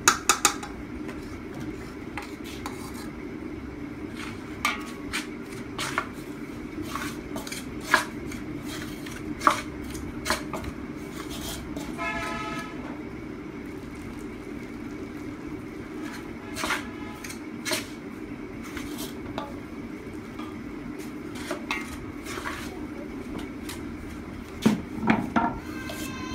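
Metal spoon clinking and scraping against a large aluminium bowl and a small aluminium pot while flour and water are mixed into dough: scattered sharp clinks, a few of them ringing briefly, over a steady low hum.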